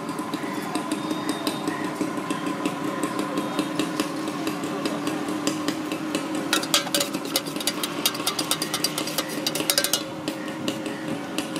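Steel spoon clinking and scraping against a steel pot as chickpea salad is scooped in and tossed, with a quick run of rapid clinks about halfway through lasting a few seconds. A steady hum runs underneath.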